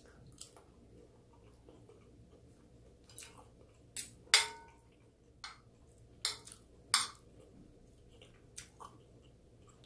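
Close-up eating sounds: chewing and the scrape and clink of a spoon against a dish. The clinks come at irregular moments, the loudest about four seconds in with a short ring.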